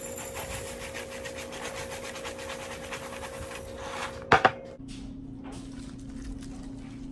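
Pumpkin Spice Cheerios pouring from the box into a large glass bowl: a dense rattle of small dry pieces hitting glass and each other. About four seconds in come two sharp knocks, then a softer sound of milk pouring onto the cereal.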